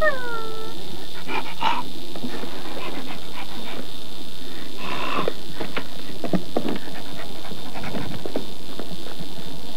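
An Alaskan malamute gives a short falling whine at the start, then pants and snuffles in short, irregular breaths.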